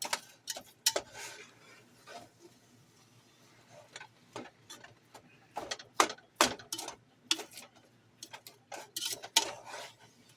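Metal spatula chopping barely thawed hamburger meat in a pan, striking and scraping the pan: irregular sharp clicks and knocks, some in quick clusters.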